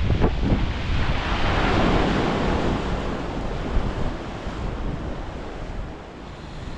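Strong wind buffeting the microphone over breaking sea waves, a steady rushing that is loudest in the first couple of seconds and eases toward the end.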